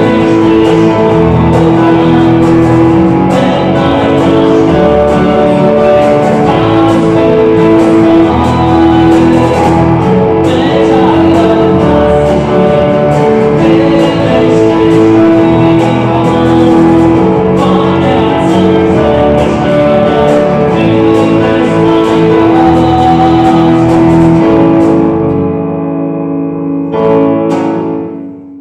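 Small live band with electric guitar and bass guitar playing an instrumental piece to its close. The playing winds down about 25 seconds in, and a final struck chord rings out and fades.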